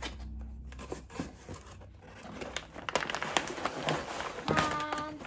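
Plastic snack bags crinkling and cardboard rustling as packs are pulled out of a shipping box, the crackles getting busier about three seconds in. A brief pitched hum sounds near the end.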